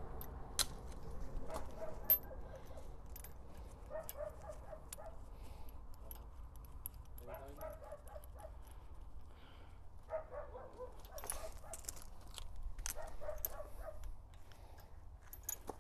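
Faint sharp clicks and clinks of metal hose and cable fittings being handled on a tractor-mounted cultivator, over a low steady rumble. Several short pitched calls sound in the background.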